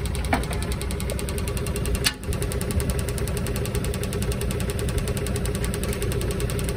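Diesel engine idling steadily, with a fast, even running rhythm.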